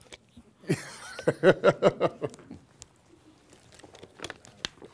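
A man laughing: a run of short bursts of laughter, each falling in pitch, lasting about a second and a half, followed by a few faint clicks.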